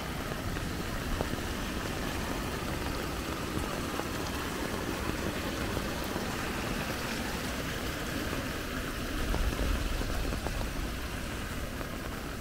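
Rain-swollen creek floodwater rushing steadily past, a continuous even hiss of flowing water. A low rumble rises briefly about nine seconds in.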